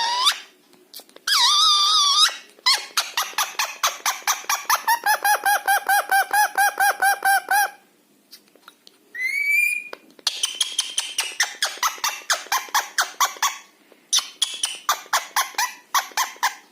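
Pet parrot calling: two short harsh squawks, then long runs of rapid chattering pulses at about five a second with a warbling trill. A short rising whistle comes about nine seconds in.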